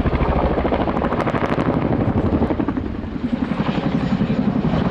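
Boeing Chinook tandem-rotor helicopter in flight, its two rotors giving a fast, steady blade chop.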